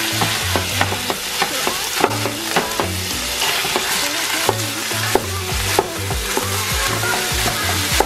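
Ground beef sizzling in a nonstick skillet while a plastic meat chopper breaks it up, its blades scraping and tapping against the pan many times.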